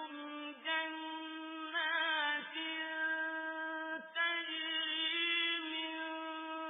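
A male reciter chanting the Quran in melodic tajwid style: long, high held notes with ornamented turns in pitch, broken by short breaths.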